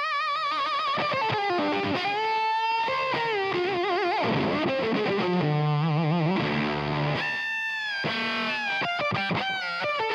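Electric guitar played through a fuzz pedal effect ('Shut the Fuzz Up') and a Plexi-style amp model on a Line 6 Helix, with a little slapback echo. It plays a lead phrase of sustained notes with wide vibrato and string bends.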